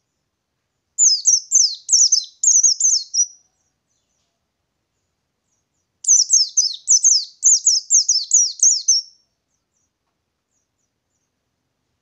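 White-eye (pleci ngalas) singing two quick rolling phrases of rapid, high, falling notes, the first starting about a second in and the second about six seconds in.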